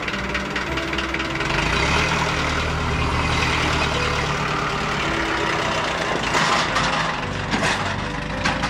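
An engine running steadily with a low hum, with a few brief clatters near the end.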